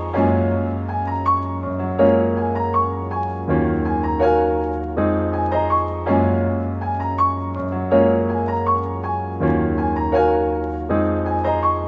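Background music: an electric-piano instrumental with a steady bass line and repeating chords.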